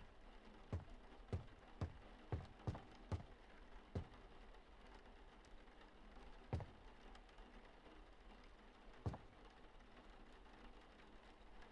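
Faint, irregular light taps or knocks: a quick run of them in the first three seconds, then single ones spaced several seconds apart.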